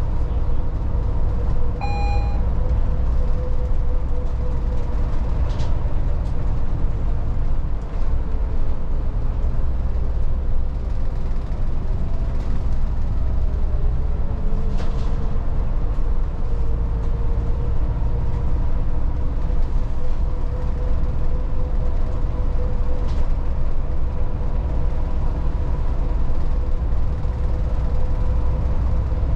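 Volvo 8900 diesel bus heard from inside while driving: a steady low rumble of engine and road with a steady drivetrain whine that drifts slightly in pitch. A short electronic beep sounds about two seconds in, and a few faint ticks come later.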